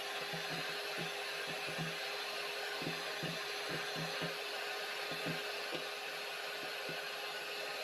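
Kenwood 250-watt electric hand mixer running steadily, its twin beaters whisking egg whites into foam, with irregular soft knocks throughout.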